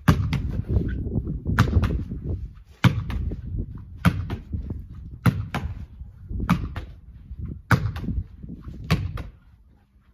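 A football thrown against a brick wall and caught in goalkeeper gloves, over and over: a sharp smack roughly every second and a quarter, often followed by a softer knock of the catch, over a steady low rumble.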